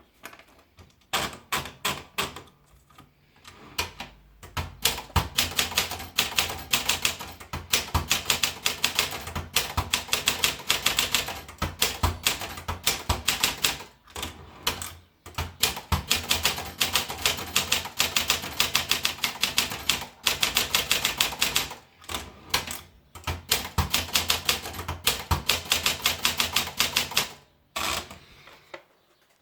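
Olympia Traveller De Luxe portable manual typewriter being typed on: fast runs of keystrokes, the typebars clacking against the platen, broken by a few short pauses.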